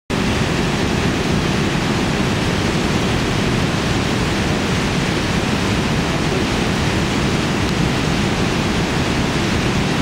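The Narva Falls, a wide low waterfall on the Narva River in heavy flow: water pouring over the ledge and churning below in a loud, steady, deep rush with no let-up.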